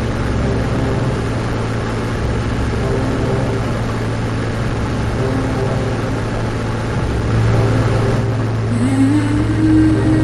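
Cessna 180's six-cylinder Continental O-470 engine and propeller droning steadily, heard inside the cockpit on approach. The drone gets a little louder about seven seconds in, and a held tone, the start of background music, slides in near the end.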